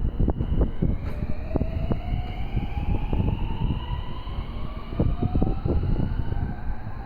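Electric train pulling away: its traction motor whine rises slowly in pitch as it gathers speed, over a low running rumble with repeated knocks from the wheels.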